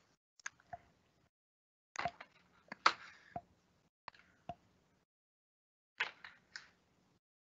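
Short clusters of sharp clicks and taps, four groups a second or two apart, on an open microphone that cuts to dead silence between them.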